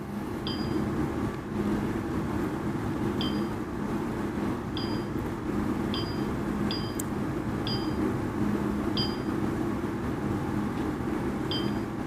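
Woodpecker LX16 Plus dental laser's touchscreen giving a short electronic beep at each key press as a word is typed, about eight beeps at uneven intervals. A steady low hum runs underneath.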